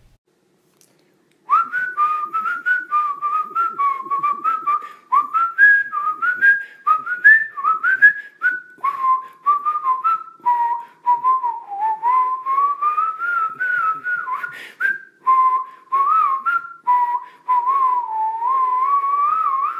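A whistled tune of short gliding notes over a light rhythmic backing, starting about a second and a half in.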